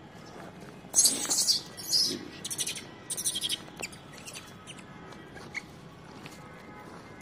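Monkeys squealing in short, high-pitched bursts, four close together starting about a second in, followed by a few fainter chirps.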